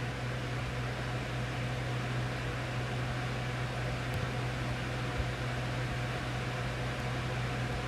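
Steady low hum with an even hiss over it, the continuous drone of a running fan or motor.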